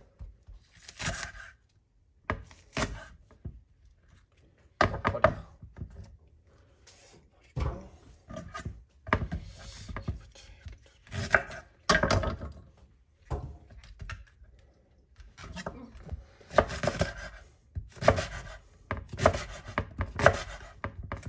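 Kitchen knife chopping green onions, in runs of quick strokes broken by short pauses.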